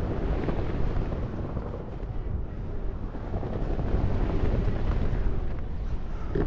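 Wind noise from airflow buffeting the camera microphone during parachute flight under an open canopy: a steady low rush that swells and eases.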